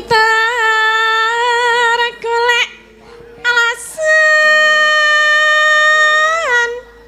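A sinden, a Javanese female gamelan vocalist, singing into a microphone. She holds a long note with vibrato, sings two short phrases, then holds a second, higher note that slides down and stops a little before the end.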